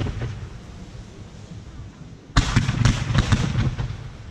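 Fireworks going off: the crackling of one volley dies away, then about two and a half seconds in a new volley of sharp bangs and crackles starts suddenly and fades over about a second.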